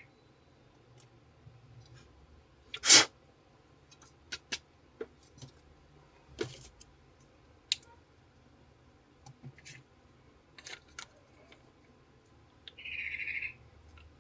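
Scattered light clicks and taps of small repair tools handling a phone's parts, with a sharper knock about three seconds in. Near the end comes a short, high-pitched chirp-like tone lasting under a second.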